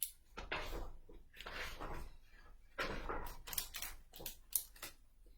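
A hardcover picture book being opened and its pages handled: a series of short rustles and soft knocks, with a pause near the end.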